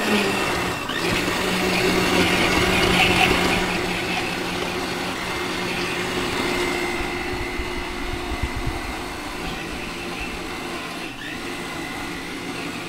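Hamilton Beach countertop blender running steadily, its motor whirring as it purées green Haitian epis, a herb-and-pepper seasoning paste. It runs a little quieter in the second half.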